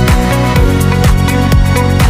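Background electronic dance music with a steady kick drum beating about twice a second under sustained synth tones.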